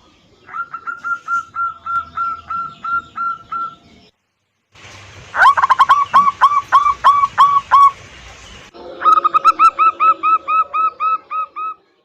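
Zebra dove (perkutut) song: three runs of about ten quick, repeated cooing notes at one pitch, each run about three seconds long, broken by short gaps where the recording cuts abruptly from one run to the next.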